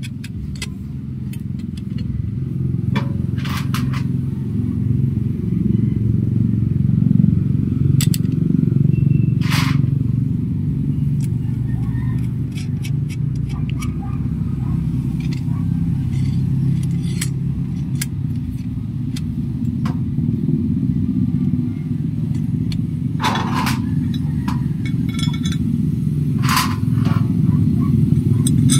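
A steady low engine rumble, with scattered light clicks and clinks of small metal parts (bolts, washers, brackets) being handled over it, a few sharper clinks standing out.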